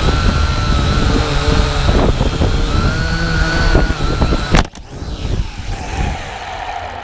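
Syma X8W quadcopter's motors and propellers running with a wavering high whine over a heavy low rumble. About four and a half seconds in there is a sharp knock, after which the sound is much quieter and the whine drops lower in pitch.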